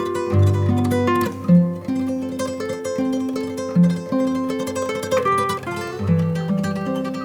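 Background music played on plucked strings, guitar-like, with a moving bass line.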